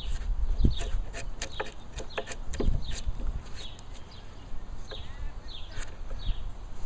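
Hand chisel paring a softwood timber-frame sill: a quick series of short slicing and scraping cuts, with low knocks about a second in and again near the three-second mark.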